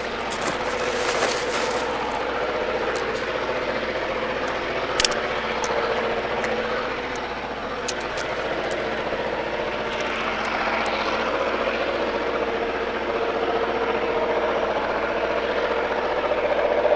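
A train running by on the mountain line: a steady mechanical drone with one held tone, a few sharp clicks, and a slight swell near the end.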